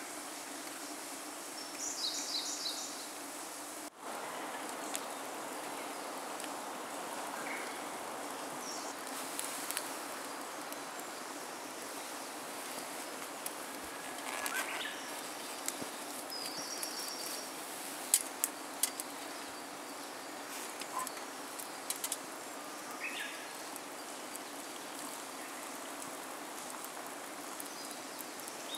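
Outdoor ambience: a steady hiss, with short high chirping calls scattered through it and a few sharp clicks about two-thirds of the way in.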